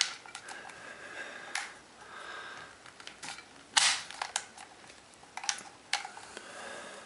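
.223 cartridges being pushed by hand into a nearly full 30-round metal AR-15 magazine, each round snapping in against the tight spring with a sharp metallic click. The clicks come irregularly, the loudest about four seconds in.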